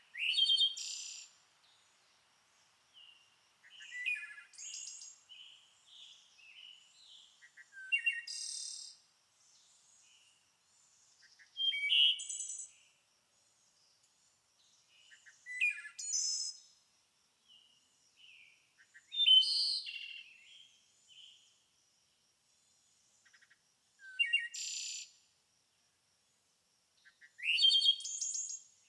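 A songbird singing: short, high, sweeping phrases about a second long, repeated roughly every four seconds.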